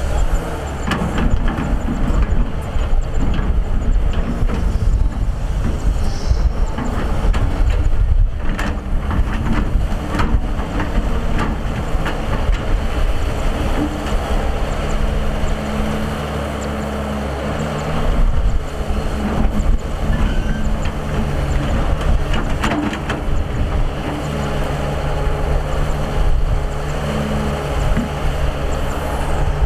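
Hydraulic excavator's diesel engine running as it digs, its note shifting with the load, with scattered knocks and scraping from the bucket working the ground.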